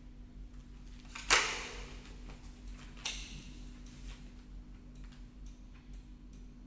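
Break-barrel nitro-piston air rifle (Precihole NX200 Athena) being closed: one sharp, loud clack with a short ringing tail a little over a second in as the barrel locks shut, then a lighter click near three seconds.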